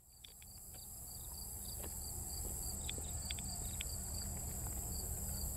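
Insects chirping, a steady high buzz with a short chirp repeating a few times a second over it, above a steady low rumble; scattered faint ticks, the whole fading in over the first second or two.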